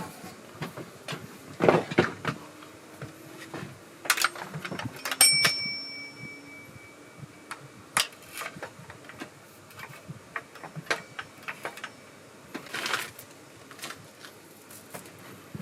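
Clicks, knocks and clatter of chainsaw parts being handled and fitted together by hand during assembly, with a metal part clinking and ringing briefly about five seconds in.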